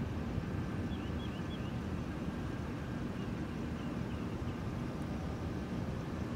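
Steady low rumble of idling vehicle engines, with a few faint high chirps in small groups about a second in and again around three seconds.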